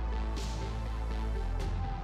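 Background music: an electronic track with a heavy steady bass, sustained tones and recurring crisp cymbal-like hits.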